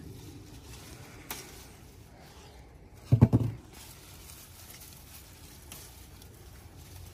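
Leaves and branches of a peach tree rustling and brushing as donut peaches are picked by hand, with a short cluster of loud low bumps about three seconds in.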